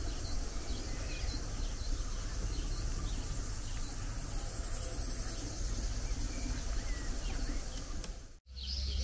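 Outdoor summer ambience: insects buzzing steadily at a high pitch over a low rumble of wind and handling on the microphone. The sound cuts out briefly near the end.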